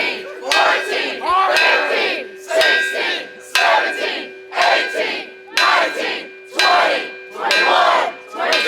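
A large bell being rung, struck about once a second, its tone ringing on between strikes, over a crowd shouting and cheering.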